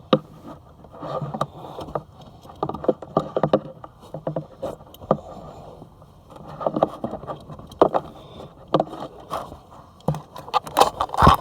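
Irregular rubbing, scraping and knocking as fingers push back car-seat upholstery to reach the metal LATCH anchor, with a cluster of louder knocks near the end.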